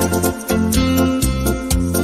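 Electronic keyboard playing a nostalgic old-song melody as light instrumental music, over a steady programmed drum beat and bass line.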